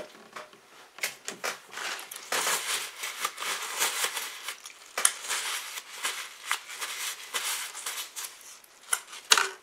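Paper tissue crinkling and rustling as it is rubbed between sticky hands to wipe them, irregular and scratchy, with a sharp click near the end.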